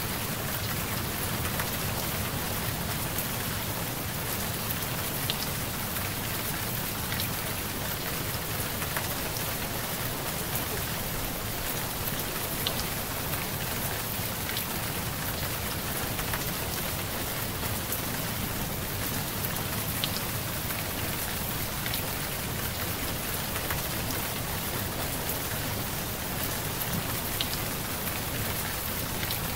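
Steady rain falling on a surface, an even hiss with scattered faint drop ticks.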